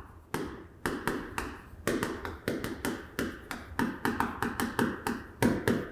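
Chalk writing on a chalkboard: an uneven, quick run of sharp taps and short scrapes as each stroke of the characters is put down.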